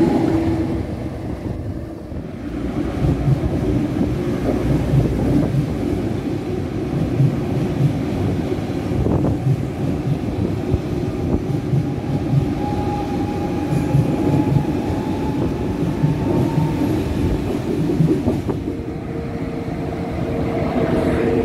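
ICE high-speed trains passing close by: a steady rumble of wheels on rails with a rhythmic clatter as the wheelsets cross the rail joints. A steady hum comes in near the end as a power car approaches.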